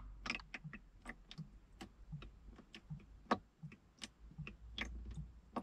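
The last of the engine coolant dripping from holes drilled in a leaking heater core into a container below: irregular sharp drips, about four a second, the heater core nearly drained.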